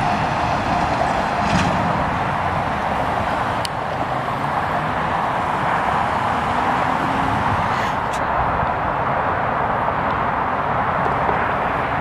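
Steady road traffic noise, an even rushing hum, with a few faint clicks.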